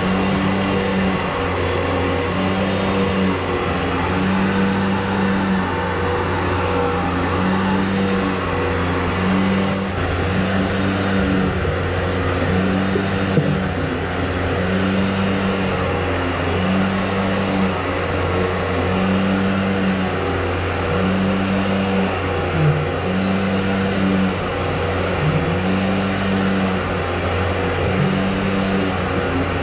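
A motorised drain-cleaning machine running steadily, with a low hum and a higher tone that comes and goes about every two seconds.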